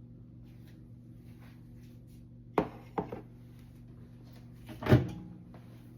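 Two quick knocks about two and a half seconds in, then a louder thump near the end: the hot bowl of ramen being lifted out of the microwave and set down, over a low steady hum.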